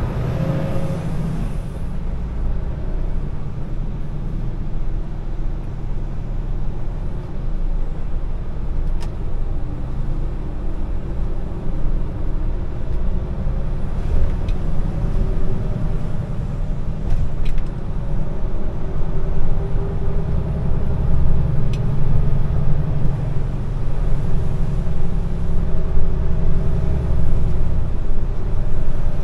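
Heavy truck's diesel engine running steadily while driving, with a low rumble that grows louder in the second half. There is a short hiss near the start and a few light clicks.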